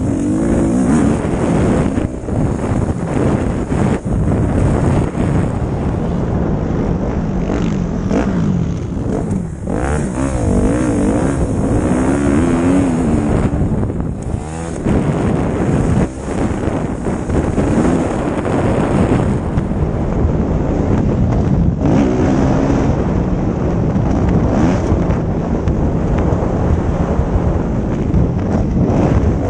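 Motocross bike engine under race throttle, revving up and down with brief throttle cuts every few seconds, with wind rushing over a helmet-mounted microphone.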